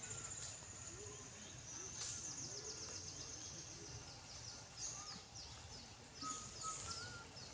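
Forest ambience: a fast series of high chirps, many falling quickly in pitch, runs throughout over a low rumble, with a few faint whistles now and then.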